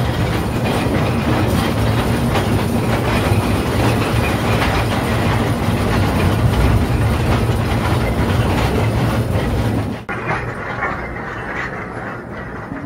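1948 electric mine locomotive running along the track: a steady loud rumble with the clatter of steel wheels on the rails. About ten seconds in the sound cuts off abruptly to a quieter, duller rumble.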